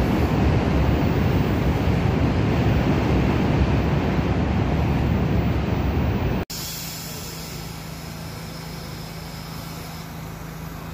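New York City subway train running into an elevated terminal station: a loud, steady rumbling noise. About six and a half seconds in it cuts off suddenly to the quieter, steady electrical hum of a stopped subway car, with a faint high whine.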